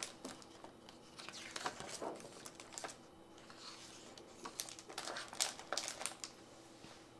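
Pages of a hardcover picture book being turned by hand: a run of short, soft paper rustles and crinkles.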